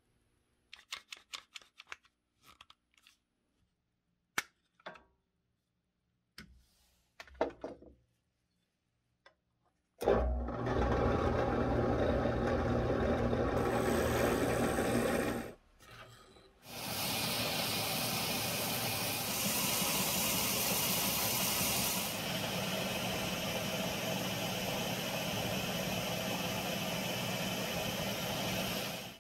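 Light clicks and taps of wooden handle pieces being handled and fitted. About ten seconds in, a drill press starts with a sudden onset and drills through the wooden knife handle for about five seconds. After a short break, a belt grinder runs steadily, sanding and shaping the handle.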